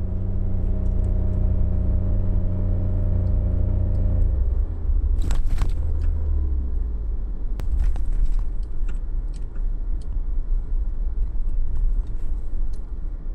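Suzuki Jimny on the move. There is a steady engine drone with a low rumble; the engine tones drop away about four seconds in, leaving low road rumble with scattered knocks and rattles.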